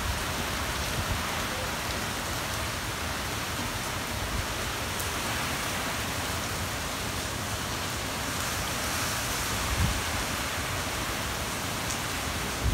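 Typhoon storm: heavy wind-driven rain pouring in a steady hiss, with one brief low rumble of wind about ten seconds in.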